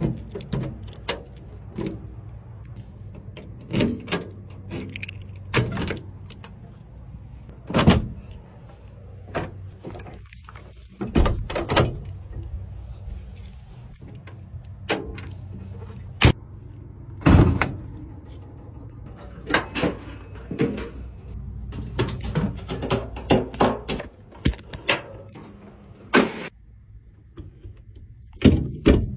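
Doors and window latches of a 1973 Dodge Sportsman Royal van being worked by hand: a long, irregular series of metal latch clicks, handle clanks and door thuds over a steady low rumble.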